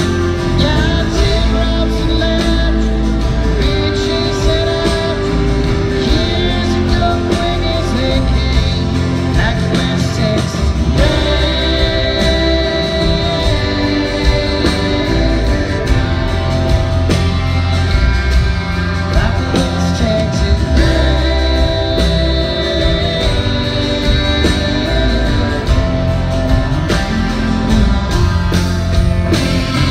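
Live country band playing loudly, with acoustic guitar, electric guitar, bass and drums, and a male voice singing at times.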